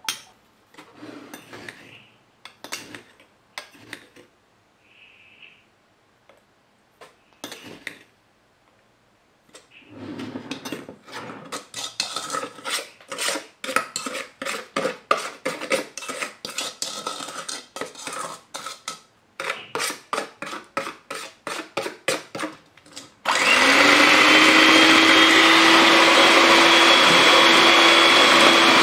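A metal spoon taps, then stirs and scrapes with quick repeated strokes in a stainless steel bowl, mixing instant coffee, sugar and water. Near the end an electric hand mixer switches on, its pitch rising briefly as it spins up, then runs steadily and loudly, whipping the mixture.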